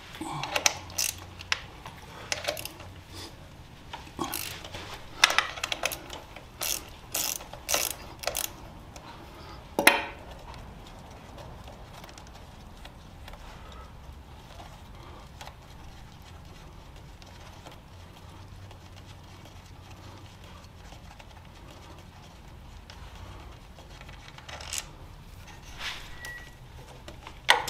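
Socket ratchet clicking in short runs as a bolt on a motorcycle's gear shift linkage is worked loose, then one sharp knock about ten seconds in. After that comes a faint steady hum, with a few more clicks near the end.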